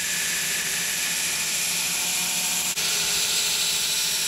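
Belt grinder running with a steel knife blade, forged from old bearing steel, held in a bevel jig against the abrasive belt at the contact wheel: a steady grinding hiss over the motor's low hum. It dips very briefly about two-thirds of the way through.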